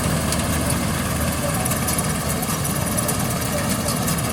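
Combine harvester engine running steadily as it cuts rice paddy.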